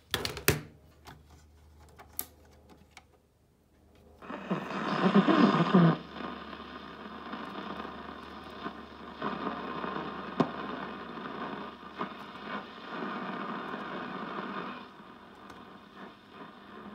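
AM broadcast reception from a vintage tube radio's loudspeaker. After a few faint clicks, a station comes in suddenly about four seconds in, loudest for a couple of seconds, then plays on steadily under hiss and drops in level near the end. The set is not pulling in all the stations, and the repairer judges that something is still wrong with it.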